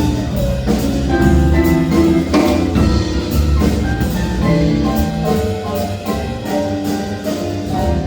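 A band playing an instrumental passage with no singing: drums keep a steady beat under sustained pitched notes.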